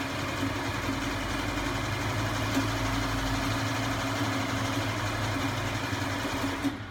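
Electric sewing machine running at a steady speed while stitching a seam, then stopping just before the end.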